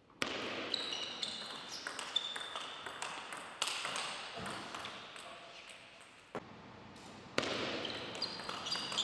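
Table tennis rallies: the ball clicking off bats and table in quick, irregular succession, with short high squeaks among the hits.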